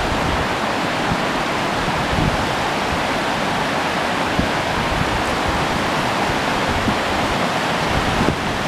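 Mountain river rapids: water rushing over shallow rock ledges in a steady, even roar of white water.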